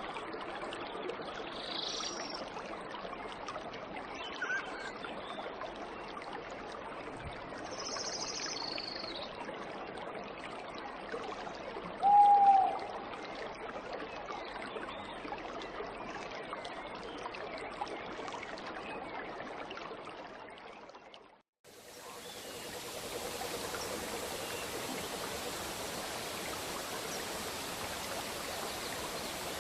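Waterfall water rushing steadily, with a few short high bird chirps and one loud short call near the middle. Near the end the rush fades almost to silence and comes back as a brighter, steady roar.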